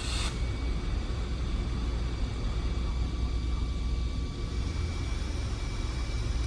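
TIG welder laying small tack welds on a metal shelf. A brief crackle as the arc strikes at the very start, then a steady low hum with a faint thin whine while the arc burns.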